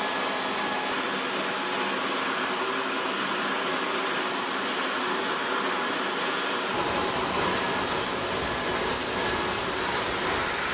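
A jet turbine running steadily: a thin high whine over a rushing roar. A deeper rumble joins about two-thirds of the way through.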